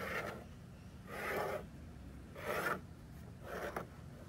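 A locked caliper's jaw tip scribing a line into an aluminum panel as it is slid along the edge: four short scratchy strokes, about a second apart.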